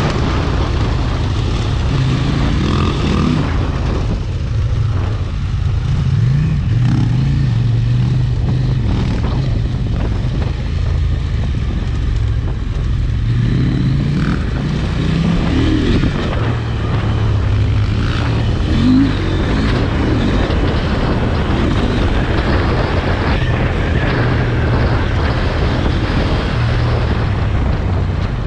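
Motorcycle engine running under way on a dirt track, heard from the rider's own bike, a KTM 890 Adventure R Rally with its parallel-twin engine. The revs rise and fall through the ride over a steady rushing noise.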